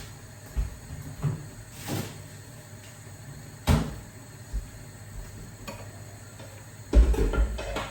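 Kitchen handling noise: a series of separate knocks and bumps, the sharpest a little before the middle, then a short burst of clatter near the end.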